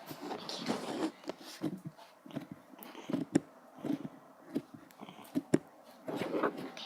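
Slime being poked with fingers on a table: irregular soft squishes with a few sharp little clicks.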